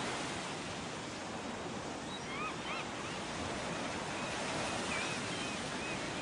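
Steady rushing noise of sea and wind, with faint high chirps like small birds repeating from about two seconds in.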